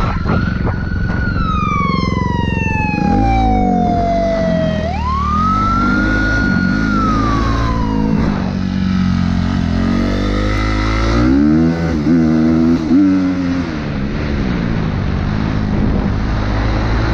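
Police car siren wailing, one long fall then a rise and a second fall, fading out about eight seconds in, over a dirt bike's engine running hard. The engine's revs rise and fall several times, most sharply a little past the middle.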